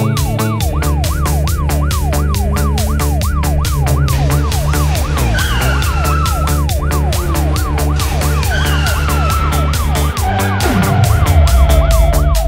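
Cartoon police siren sound effect in a fast yelp, its pitch sweeping up and down about three times a second, over background music with a steady beat. The fast yelp stops about ten seconds in, and slower falling siren-like tones come and go.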